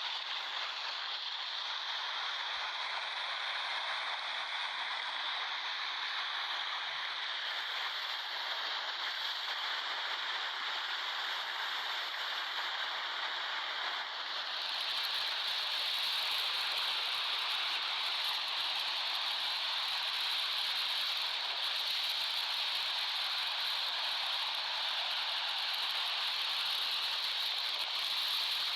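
Sea surf heard as a steady hiss, which grows a little louder and brighter about halfway through.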